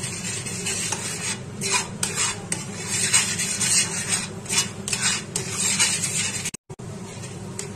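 A spatula scrapes and stirs thick, cooked-down milk (khoa paste) around a stainless steel pan in repeated strokes, over a steady low hum. The sound breaks off for an instant about two-thirds of the way through.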